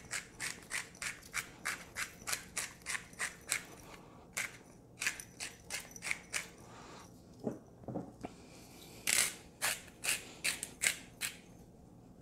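Hand-twisted salt and pepper grinder cracking and grinding over the pot: quick bursts of gritty clicks at about four a second, a pause with a couple of dull knocks about halfway, then more grinding.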